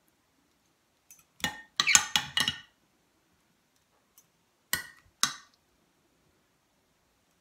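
Metal spoon clinking against a plate and serving bowl as food is dished out: a quick run of clinks about a second and a half in, then two single clinks about five seconds in.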